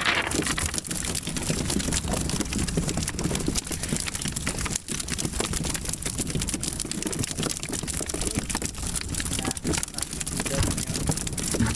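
Freshly netted mullet flopping on a boat deck: many irregular small slaps and thumps of bodies and tails on the deck, over a steady low rumble.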